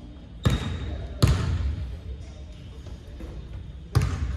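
A basketball bouncing on a hardwood gym floor: three separate bounces, about half a second in, a second later, and near the end, each echoing through the hall.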